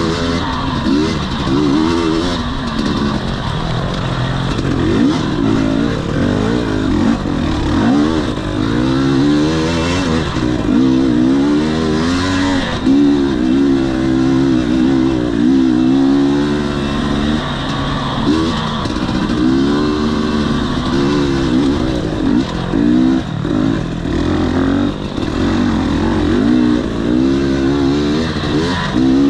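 2021 Husqvarna TE250i two-stroke dirt bike engine revving up and down over and over as the throttle is opened and closed while riding.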